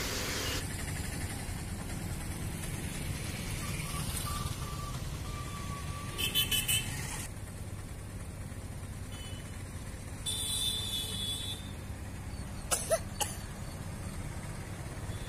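Road traffic with a steady low rumble of engines and tyres. A quick run of horn toots sounds about six seconds in, and a longer horn blast comes around ten seconds in.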